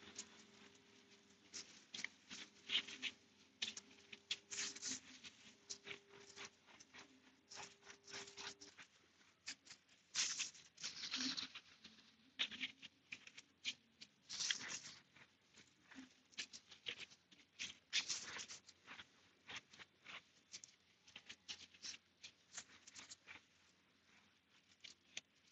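Faint, irregular rubbing and rustling of a cloth wiping a diesel-wet motorcycle chain by hand, in short strokes, with the chain turned backwards.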